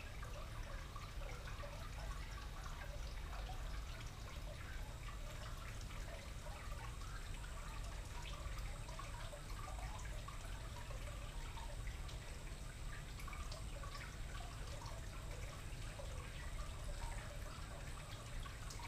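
Water trickling and splashing steadily from a garden fountain, over a low steady rumble.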